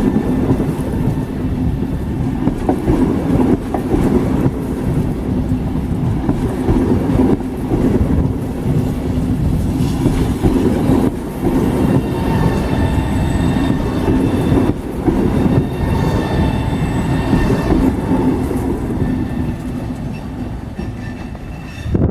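A train running past at close range: a loud, steady rumble of wheels on rail with a steady humming tone from the train, the hum dropping out a few seconds before the end.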